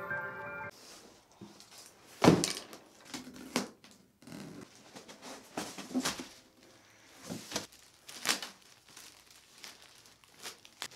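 Clear plastic packaging bag crinkling and rustling as a backpack is unwrapped from it, in irregular bursts of handling noise, with one loud thump about two seconds in.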